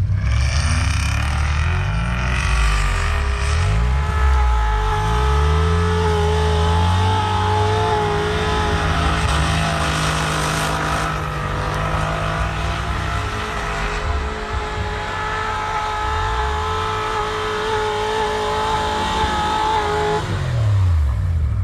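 Off-road 4x4's engine revving hard, its pitch rising and falling again and again under load, with a steady high whine over it.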